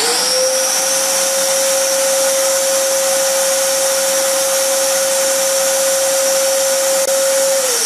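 Shop vac hooked to the scroll saw's dust collection port, switched on and running. Its motor whine winds up at the start and holds one steady pitch with a hiss of rushing air, then winds down after it is switched off near the end.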